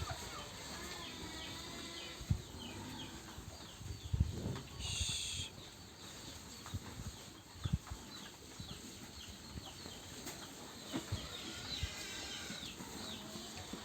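Farmyard birds, chickens among them, chirping in many short, quick calls, with scattered low knocks and a brief hissy high sound about five seconds in.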